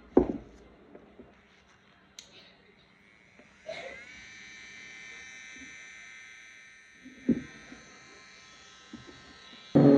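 Kredioo electric nail drill handpiece starting up about four seconds in and running with a faint, steady high whine, with a few knocks from handling. Near the end a much louder, lower motor hum starts abruptly.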